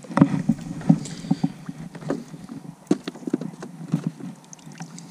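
A string of irregular knocks and bumps, about a dozen, of gear and movement against a small fishing boat's hull.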